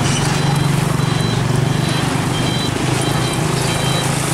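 Diesel tractor-trailer truck driving past slowly, its engine running with a steady low drone. Short thin high-pitched tones come and go over it.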